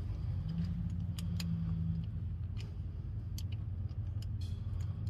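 A few light, sharp clicks and taps as a crankshaft position sensor and its small mounting nut are handled and fitted at the engine block, over a steady low hum.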